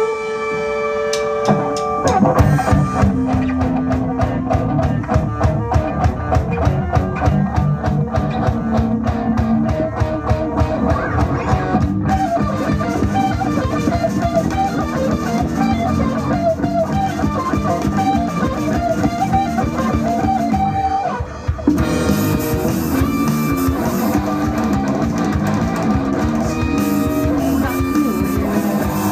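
Rock band playing live: electric guitars, electric bass and a drum kit. A held guitar chord rings first, then about two seconds in the drums come in with a fast, driving beat, and a lead guitar line runs over it through the middle, with a short break about three quarters of the way through.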